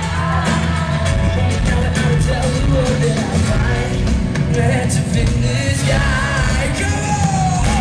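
Live pop-rock band music with singing, over a heavy bass and drums, as heard in an arena concert hall.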